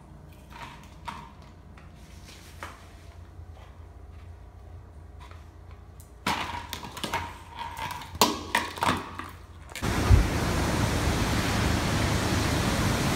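A dog pushing a ball around a tiled floor: faint taps at first, then a run of loud clattering knocks. About ten seconds in, these give way to a loud, steady rushing noise.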